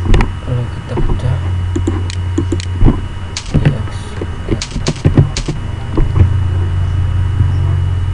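Computer keyboard keystrokes and mouse clicks, irregular and spaced out, over a steady low electrical hum that gets a little stronger about six seconds in.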